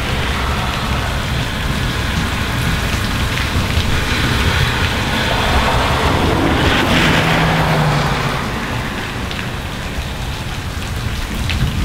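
Heavy rain falling steadily on pavement and grass, with cars' tyres hissing past on the wet road; the hiss swells about six seconds in as a car goes by.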